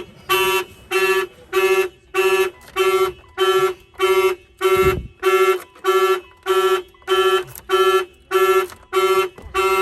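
Aftermarket Avital 3100 car alarm tripped and sounding: one steady-pitched blast repeating evenly, just under twice a second.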